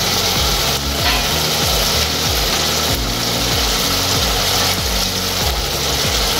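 Schezwan sauce simmering and sizzling in a shallow pan, a steady rasping hiss, as steamed momos are laid into it one after another. A low, repeating musical bass line runs underneath.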